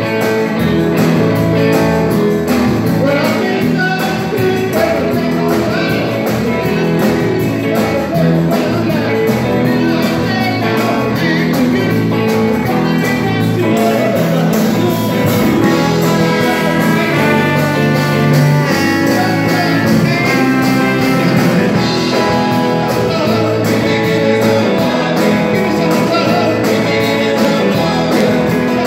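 Live band playing a rock song, with drums, electric guitar, trombone and keyboard under singing.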